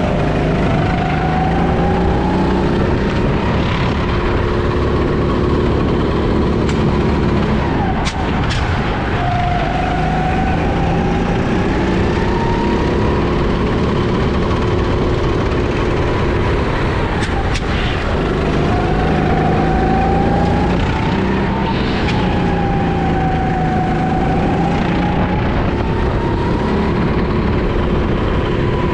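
Go-kart engine heard from the driver's seat at full race pace, its pitch sweeping up and down in long swells as the throttle is worked through the corners. It drops sharply twice, about eight and seventeen seconds in, each time with a few sharp knocks.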